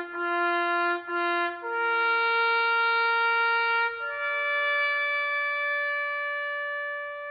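A solo trumpet playing slow, sustained notes: two short notes on the same pitch, then a longer note a step higher about one and a half seconds in, then a higher final note about four seconds in, held and slowly fading.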